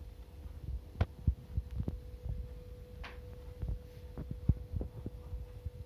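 Soft, irregular low thumps and knocks with a low rumble, the handling noise of a hand-held camera's microphone as it is moved. A faint steady hum comes in about two seconds in.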